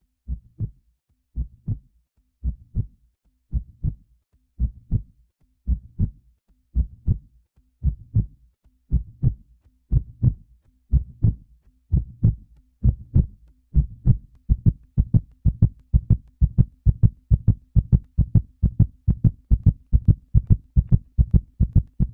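Heartbeat-like low double thumps beating in a steady rhythm. They quicken from about one beat a second to more than two a second and grow louder.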